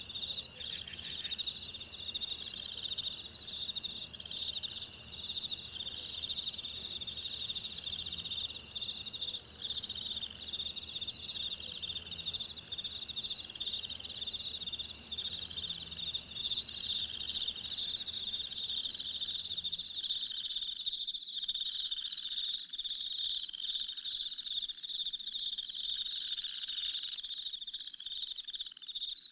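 Chorus of crickets and other insects trilling continuously in fine rapid pulses, high and steady, over a low background murmur that drops away about two-thirds of the way through.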